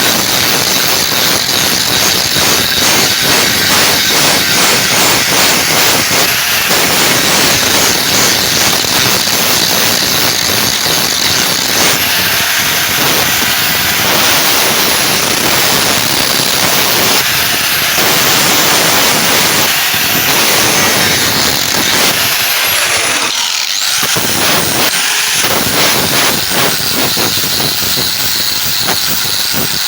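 Power abrasive tool working a steel knife blade: a loud, steady grinding hiss. It drops out briefly twice about two-thirds of the way through.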